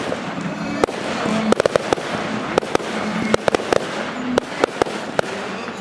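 Fireworks display: many sharp bangs at an uneven, rapid pace over a continuous crackling hiss.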